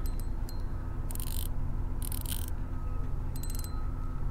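Spinning reel being cranked in about four short bursts, its gears clicking as line is wound in, over a steady low rumble.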